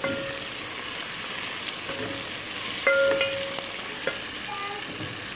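Sliced onions sizzling in hot oil in a steel pot as they are stirred with a wooden spoon, frying toward golden brown. A few short ringing clinks come with the stirring, the loudest about three seconds in.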